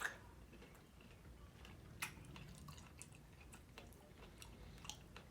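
Faint chewing of strawberry cheesecake, with a few soft wet mouth clicks, the clearest about two seconds in.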